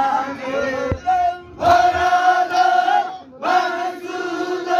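Male voices singing a Baloch Zikri chogan chant, with shorter gliding phrases at first and then two long held notes.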